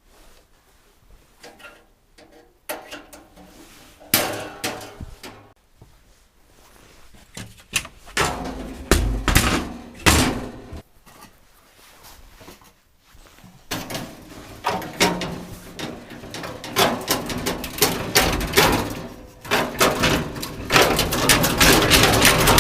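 A series of irregular knocks, thuds and bangs, sparse at first and coming faster and closer together, turning into nearly continuous rattling and banging over the last few seconds.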